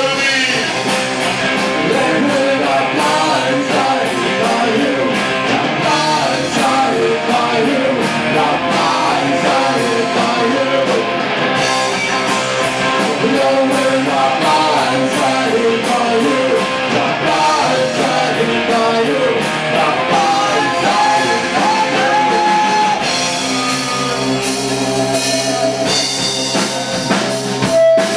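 Rock band playing live in a room: electric bass and electric guitar with drums, a full continuous groove.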